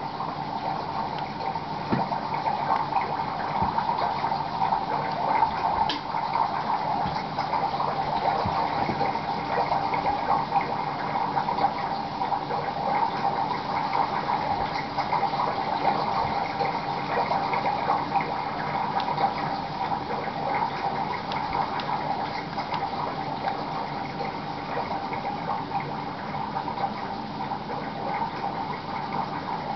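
Steady bubbling, trickling water sound from a virtual reef aquarium playing on a computer, unbroken throughout, with a constant mid-pitched hiss and many small pops.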